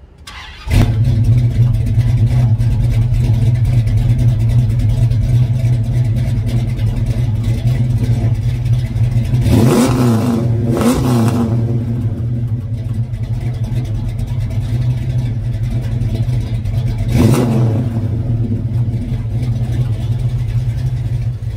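1966 Dodge Coronet V8 idling with a steady, deep rumble from its exhaust. It is reved three times: twice in quick succession about halfway through and once more near the end.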